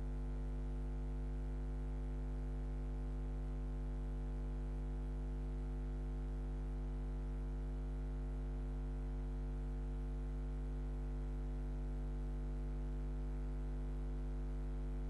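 Steady electrical mains hum: a low 50 Hz drone with a stack of overtones, unchanging throughout and with no other sound over it.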